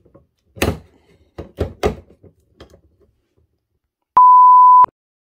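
Metal clicks and clunks of a handheld can opener being worked on a tin can, mostly in the first two seconds. Near the end comes a loud, steady, single-pitch electronic bleep lasting under a second, then it cuts off.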